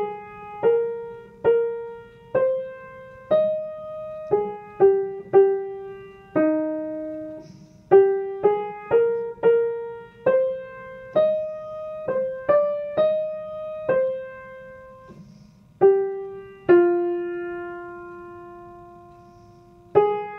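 Piano playing a single-line melody one note at a time, the soprano part of a choral piece picked out for learning. The notes are struck and left to ring, at a moderate walking pace, and the phrase ends on a long-held lower note near the end.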